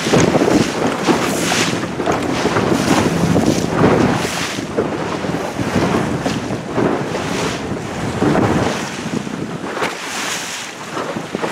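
Wind buffeting the microphone in uneven gusts over the rushing wash of choppy water against a sailboat's hull as it sails.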